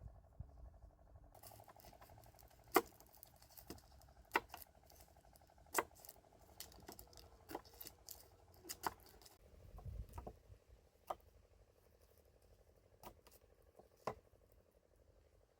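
Irregular sharp clicks and knocks of kitchen utensils being handled, about ten over the stretch, over a faint steady hum.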